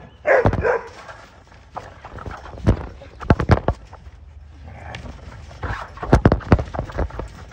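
A dog's short bark or yip just after the start, followed by two clusters of sharp clicks and knocks.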